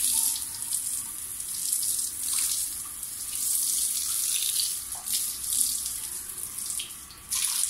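Hose spray hitting a Doberman's wet coat and the kennel's wire mesh: a steady splashing hiss that swells and fades as the stream moves, dropping briefly about seven seconds in.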